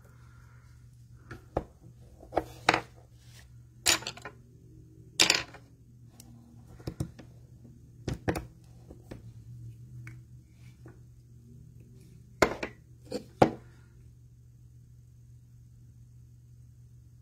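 Irregular light clicks and knocks of paintbrushes and small items being handled on a desk, about a dozen in all, loudest a little after five seconds in and again near thirteen seconds, over a steady low hum.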